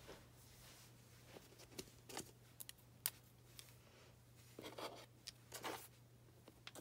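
Faint handling sounds of a pen and craft materials being picked up from a table: scattered small clicks and short rustles, with one sharper click about three seconds in, over a steady low hum.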